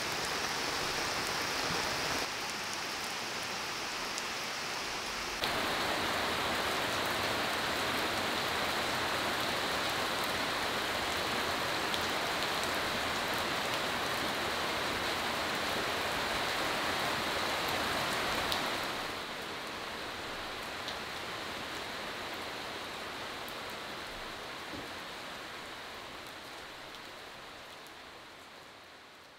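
Heavy rain falling steadily, a continuous hiss of rain on leaves and wet ground. It grows louder about five seconds in, drops back after about nineteen seconds, and fades out near the end.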